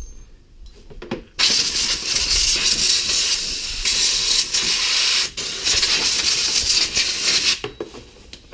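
Compressed air from an air hose blowing brake dust and dirt out of a side-by-side's rear brake caliper: a loud, steady hiss that starts about a second and a half in, breaks off for a moment midway, and stops shortly before the end.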